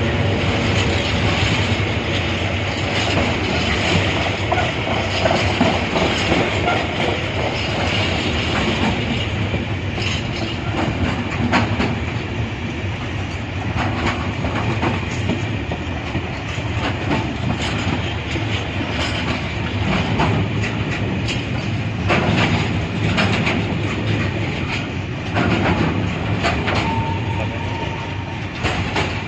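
A train running past close by, its wheels clattering over the rail joints in a steady loud rumble, with a brief steady high tone near the end.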